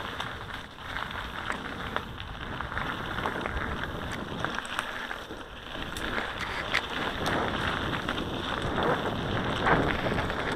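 Mountain bike rolling over a gravel and asphalt track: tyre noise on grit with scattered small clicks and rattles from the bike, and wind buffeting the microphone. It gets louder in the second half.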